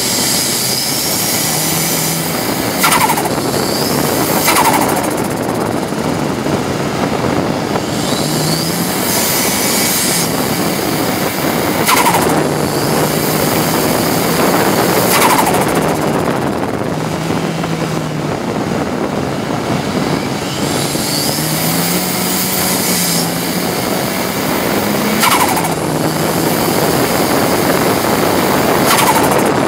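Ford Cosworth race car's turbocharged four-cylinder engine at full throttle, heard from inside the stripped cabin: revs climb repeatedly and break off at each upshift as the car accelerates hard.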